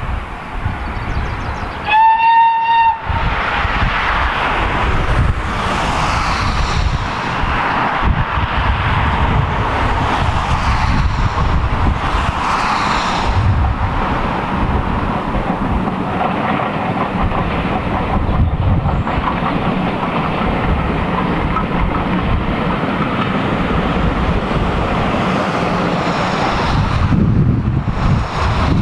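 Steam locomotive whistle giving one short blast about two seconds in, followed by the locomotive working its train past with a steady chuffing exhaust and the rumble of the coaches.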